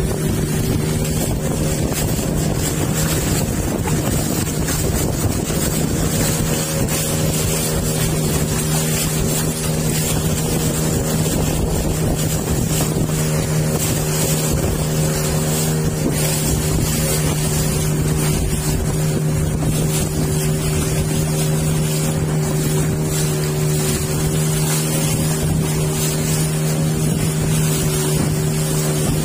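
Engine of a small river boat running at a steady cruising speed, a constant even drone, with water rushing past the hull and wind on the microphone.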